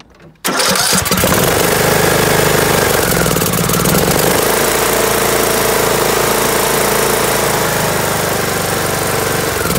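Riding mower's Briggs & Stratton engine starting about half a second in on full choke and then running steadily and loud. It is a cold start that catches at once, now that the loose choke cable has been tightened and the choke closes fully.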